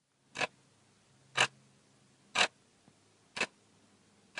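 Quiz countdown timer sound effect: a clock ticking once a second while the on-screen count runs down.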